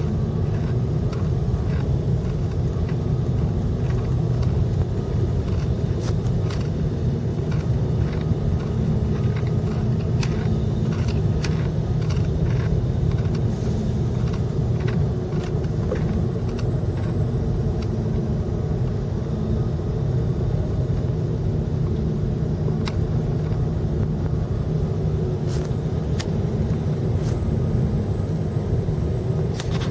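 Steady low rumble of a motor vehicle running, heard from inside the cab, with a few scattered light clicks.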